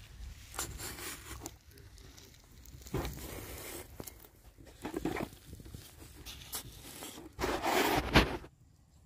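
Wooden fishing-line spools with metal bicycle sprockets being handled and pushed into coarse sand: irregular scrapes, crunches and knocks, the loudest a scrape of about a second near the end.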